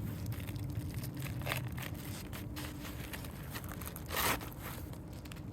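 A Roof Snake shingle-removal tool scraping and rustling under asphalt shingles as it catches on the underlayment and is worked free, with a short, louder scrape about four seconds in.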